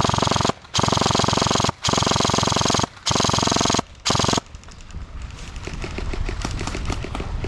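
Airsoft gun firing on full auto: five long bursts of rapid shots, each lasting up to about a second, then fainter scattered shots near the end.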